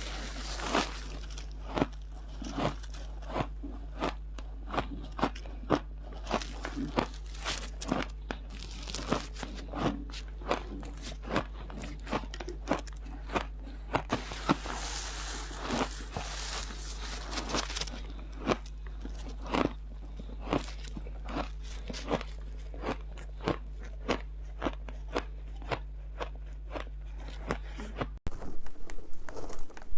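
Someone chewing a mouthful of refrigerator freezer ice, with sharp, regular crunches about one to two a second over a steady low hum. The hum stops suddenly near the end.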